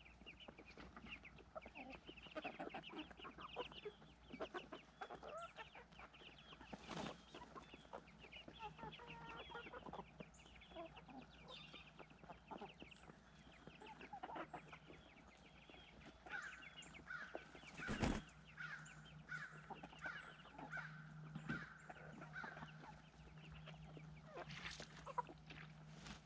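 Domestic hens clucking, with a run of quick repeated clucks in the second half. Two sharp knocks come about seven and eighteen seconds in, over a steady low hum.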